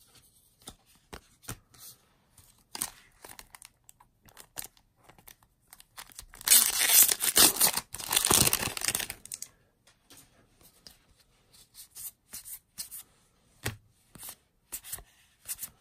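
Foil wrapper of a Magic: The Gathering booster pack torn open and crinkling for about three seconds midway, the loudest sound here. Before and after it, soft scattered clicks of playing cards being handled.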